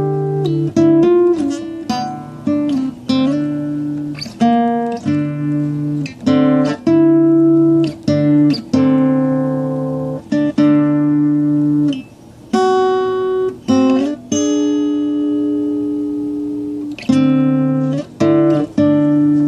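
Acoustic guitar played slowly and calmly: chords and single notes plucked one after another and left to ring out over a sustained low bass note, with short breaks between phrases.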